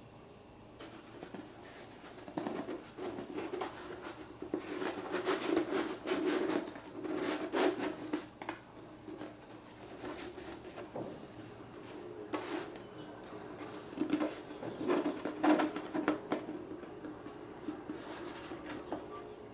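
A thin plastic sheet rustling and crinkling as it is rolled by hand into a cone, with irregular light taps and crackles, busiest in the middle and again in the latter half.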